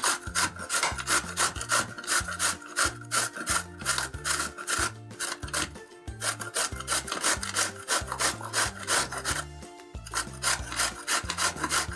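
Raw green mango being grated on a stainless steel box grater: quick, repeated rasping strokes of the firm fruit against the metal teeth, with short pauses between runs.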